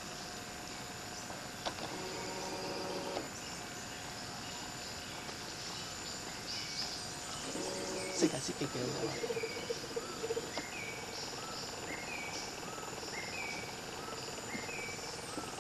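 Faint tropical forest ambience: insects chirring steadily, with a short falling call repeated over and over through the second half.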